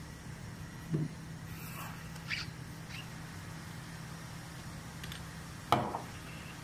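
Indoor room tone with a steady low hum, broken by a dull bump about a second in and a sharper knock near the end.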